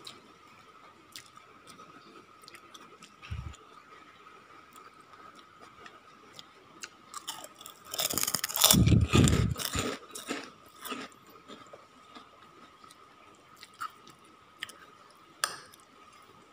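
A person chewing and crunching a mouthful of rice and vegetables close to the microphone, loudest for about two seconds in the middle. Scattered light clicks of a metal spoon on a ceramic plate come before and after, over a faint steady whine.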